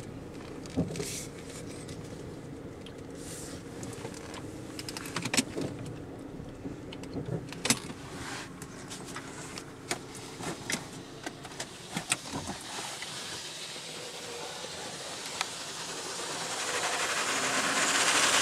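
Rollover car wash gantry running, heard from inside the car: a steady motor hum with scattered clicks and knocks. About three seconds from the end a hiss of water spray and spinning polyethylene brushes hitting the car rises to a loud rush.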